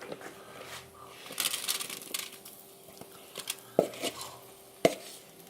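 Kitchen dish sounds as potato pieces are scraped from a bowl onto a preheated sheet pan, with patches of hissy scraping and two sharp knocks of a utensil against the dish about a second apart.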